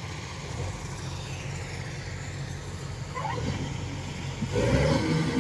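Kubota DC105X combine harvester running as it cuts rice: a steady engine hum that grows louder and fuller about four and a half seconds in.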